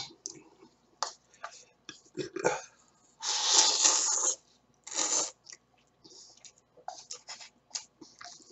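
A man slurping ramen noodles off chopsticks: one long, loud slurp about three seconds in and a shorter one around five seconds, with small mouth clicks and smacks between.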